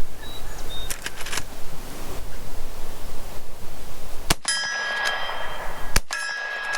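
Marlin 1894 CSBL lever-action rifle firing .38 Special: a few clicks about a second in, then two shots about 1.7 s apart, each followed by a metallic ringing.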